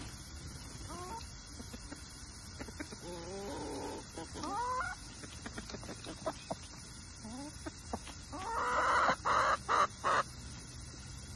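A chicken clucking: short rising calls scattered through the first half, then a louder, harsher run of several short squawks near the end.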